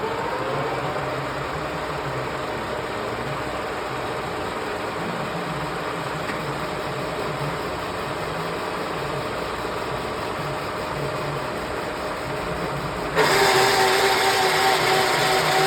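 Parkson 2N universal milling machine running under power, a steady mechanical whine from its drive and gearing. About 13 seconds in it abruptly gets louder, with a new, stronger whine: a change of speed or another drive engaging.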